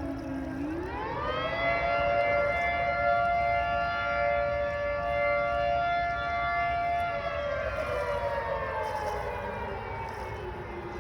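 A siren wailing: its pitch climbs quickly about a second in, holds steady for several seconds, then slowly falls away.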